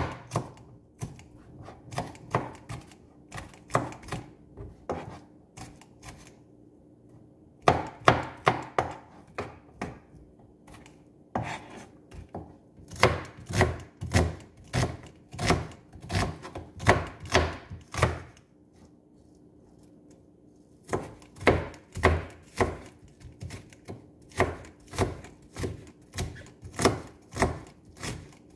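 Kitchen knife chopping red onion on a cutting board: sharp knocks about two a second, stopping twice for a couple of seconds, over a faint steady hum.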